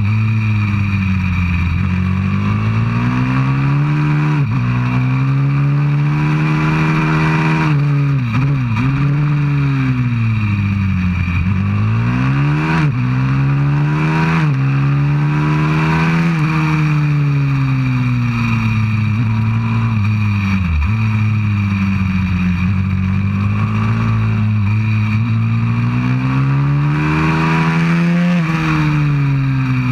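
190cc pit bike's single-cylinder four-stroke engine at racing pace, revving up hard and dropping back again and again, with quick dips in pitch at each gear change.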